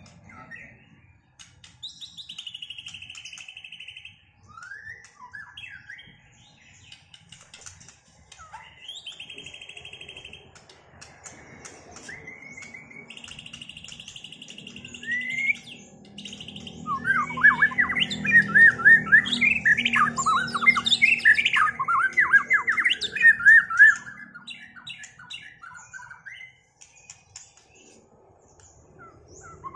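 White-rumped shama (murai batu) singing: separate whistles and a few held notes at first, then a loud, rapid run of varied notes lasting several seconds from about halfway through.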